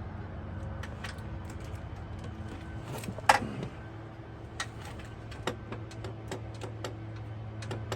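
Scattered metallic clicks and taps of a wrench working on a bolt, with one louder ringing metal clank about a third of the way in, over a steady low hum.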